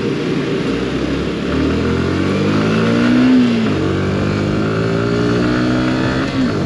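Yamaha R15 V4's 155 cc single-cylinder engine pulling under throttle on the ride. Its pitch rises for a couple of seconds, drops sharply about three and a half seconds in, climbs again and drops once more near the end.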